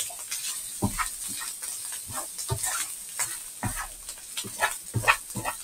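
Egg fried rice sizzling in a large frying pan as it is stirred and tossed, with a steady frying hiss and irregular scrapes and knocks of the utensil against the pan.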